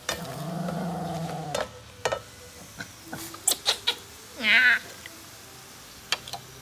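A baby monkey gives one short, loud, warbling squeal about four and a half seconds in, with a few sharp clicks and taps before it.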